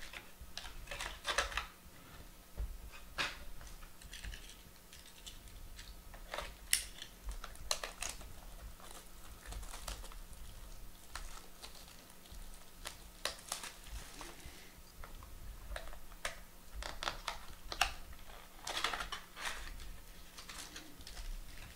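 Hands handling cardboard card boxes and foil-wrapped trading-card packs: irregular light taps, clicks and rustles of packaging, with a short cluster of rustling near the end.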